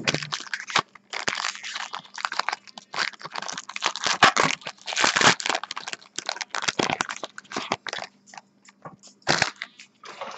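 Plastic wrapper crinkling and tearing with papery rustles as a pack of trading cards is opened and handled, in uneven bursts of crackling.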